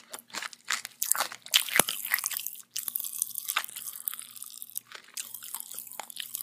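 Pop Rocks bubblegum crackling and popping in a mouth while it is chewed: a dense, irregular run of sharp little crackles with a few louder snaps, one of them about two seconds in.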